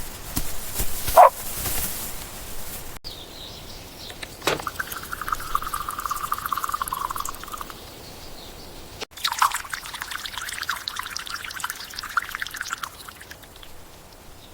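Liquid being poured and trickling, with dripping and fine crackling, in short segments that change abruptly.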